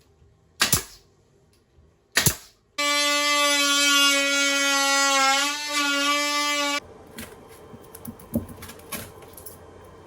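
Two sharp knocks, then a loud horn blast held for about four seconds with a slight dip in pitch near its end, followed by a few light clicks.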